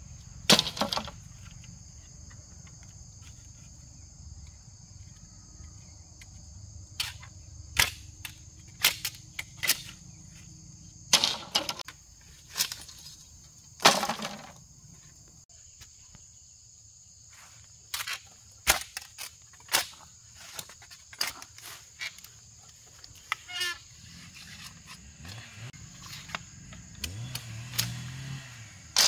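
Machete chopping and splitting bamboo poles: irregular sharp cracks and knocks, sometimes in quick runs, sometimes seconds apart. A steady high drone of insects runs under them.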